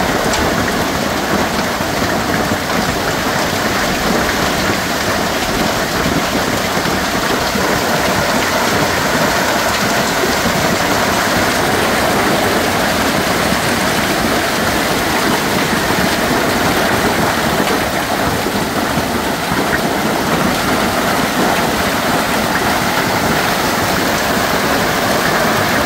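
Severe hailstorm: hailstones and heavy rain pelting down, a steady, dense din at an even, loud level.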